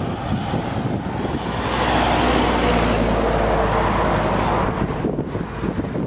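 A car passing along an asphalt highway: its tyre and engine noise swells about a second in, holds, then fades near the end. Wind buffets the microphone throughout.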